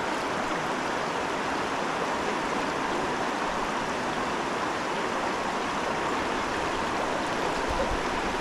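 Steady rush of flowing river water, the current of the Salmon River.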